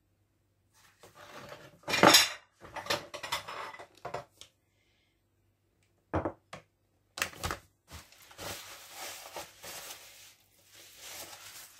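Dishes and cutlery being handled, clattering. There is a burst of clinks and knocks about two seconds in, a few sharp knocks around six and seven seconds, then softer scraping and rustling near the end.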